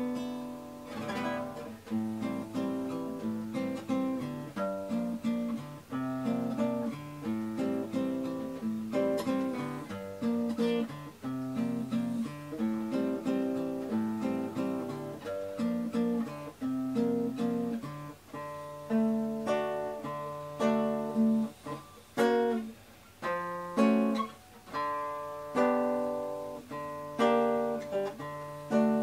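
Background music on an acoustic guitar: picked notes and chords, with fuller strums in the second half.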